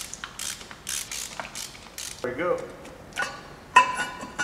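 Socket ratchet clicking in short strokes as the 12 mm nuts on the exhaust manifold of a VW/Audi 1.8L turbo cylinder head are run off, then metallic clanks with a brief ringing, the loudest sound, near the end as the manifold is worked free of its studs.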